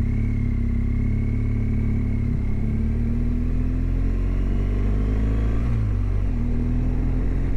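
BMW GS motorcycle engine running at a steady cruising speed, recorded on board, with a heavy low rumble underneath. About six seconds in the engine note dips briefly and then settles back to the same pitch.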